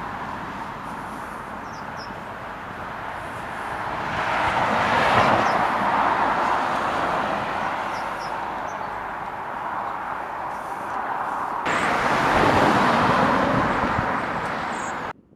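Road traffic going by on a two-lane road: one car passes about five seconds in, and another, louder, goes by near the end before the sound cuts off suddenly.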